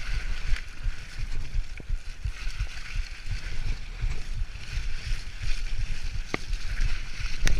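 Mountain bike ridden fast over a wet, leaf-covered dirt trail, heard from a bike-mounted or rider-worn camera: wind buffeting the microphone, with constant low thumps and rattles from the bike over the rough ground and a steady hiss. A couple of sharp clicks come near the end.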